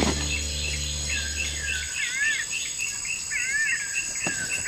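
Tropical forest ambience: a steady high insect drone under rapid, repeated chirping calls with wavering whistled glides. A held low note of the soundtrack music fades out about two seconds in.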